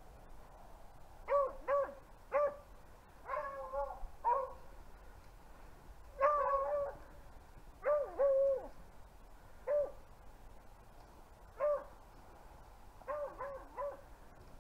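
Beagles on a rabbit hunt, baying: an irregular run of short bays and a few longer drawn-out ones, the sound of the hounds running a rabbit's track.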